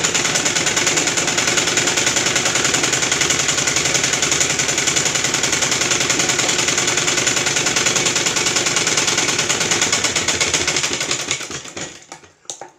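Domestic straight-stitch sewing machine running fast and evenly as it stitches a straight seam through cotton cloth, a rapid steady clatter of needle and feed. It slows and stops about a second before the end, followed by a few light clicks as scissors come to the cloth.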